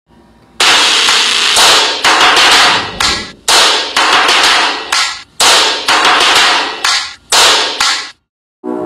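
A series of loud, harsh noise hits, roughly a dozen, starting about half a second in. Each starts suddenly and fades or cuts off, and they break off briefly just before the end.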